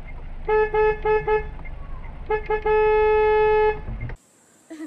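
Car horn honked in a quick run of four short toots, then two more short toots and a long blast of about a second, over the steady low rumble of a car driving. The rumble cuts off abruptly about four seconds in.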